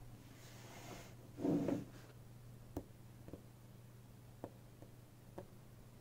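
A ring of small neodymium magnet balls being handled: a short muffled handling noise about a second and a half in, then about five sharp, separate clicks as balls snap against each other. A faint steady hum runs underneath.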